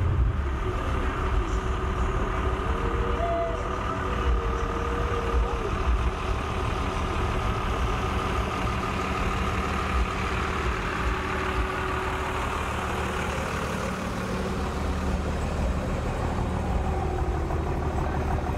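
Engine of a lowered 1970s Chevrolet square-body dually pickup running at low revs as it rolls slowly by, a steady low note.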